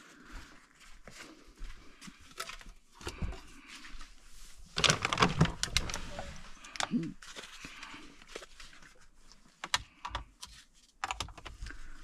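Handling noise from leather shift boots being carried and moved about a car's centre console: scattered light clicks, taps and rustles. About five seconds in there is a louder cluster of knocks and rustling.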